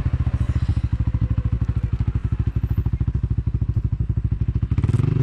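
ATV engine running at low revs with a rapid, even chugging, then picking up revs near the end.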